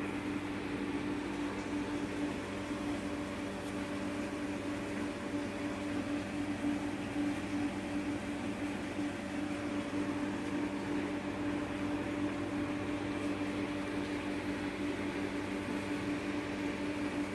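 Steady machine hum: a constant low drone over a faint hiss, unchanging throughout.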